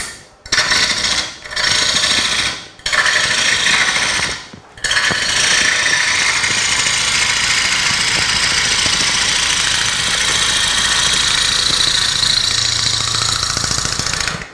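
A bowl gouge cutting into a spinning Bradford pear bowl blank on a wood lathe, the side of the tool used as a scraper to knock the corners off while rough-turning. There are three short cuts in the first few seconds, then one long steady cut that stops suddenly at the end.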